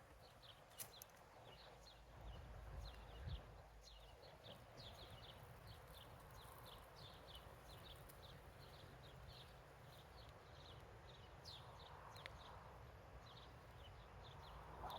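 Faint outdoor quiet with small birds chirping over and over in short, quick chirps, over a low rumble of wind.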